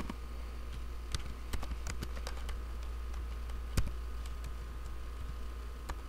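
Computer keyboard typing: irregular key clicks, with one louder keystroke about four seconds in, over a low steady hum.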